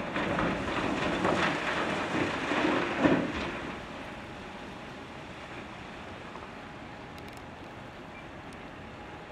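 Blasted rock pouring out of a wheel loader's side dump bucket into a steel dump-truck body: a loud rattling, crashing rumble for about three and a half seconds, ending in a sharp bang just after three seconds. After that it drops to a steady, lower diesel engine rumble from the machines.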